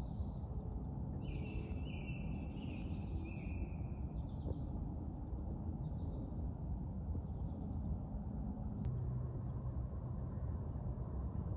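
Outdoor summer ambience: insects trilling steadily at a high pitch, with a few short bird calls in the first few seconds, over a low steady rumble.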